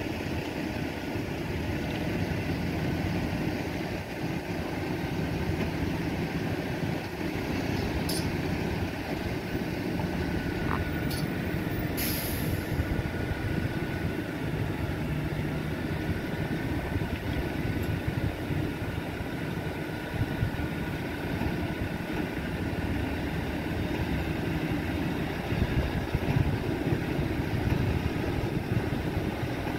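Heavy-haulage diesel engine running steadily with a low hum. A short hiss comes about 12 seconds in.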